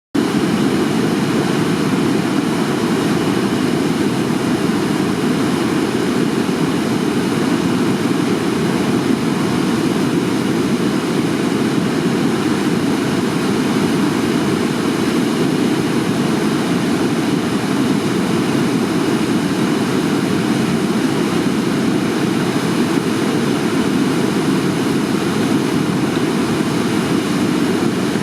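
A swollen river rushing steadily, running high after a typhoon's heavy rain.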